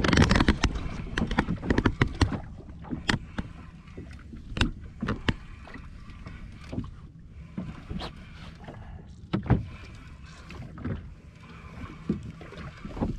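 Knocks and clatter of gear against a small fishing boat, a quick loud cluster in the first two seconds, then single knocks every few seconds over a steady low rumble of the hull on the water.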